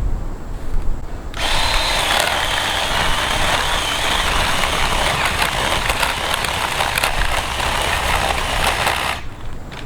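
Ryobi 18-volt cordless 10-inch chainsaw running for about eight seconds, its electric motor whining as the chain cuts into a branch about two inches thick, then stopping abruptly. The battery is down to its last bar and the saw is overheating.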